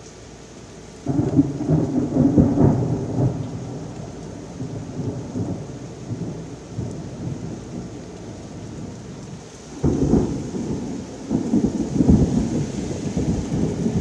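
Thunder over heavy rain. A sudden loud clap about a second in rolls off over a few seconds, and two more rumbles break in near the end, over a steady downpour hiss.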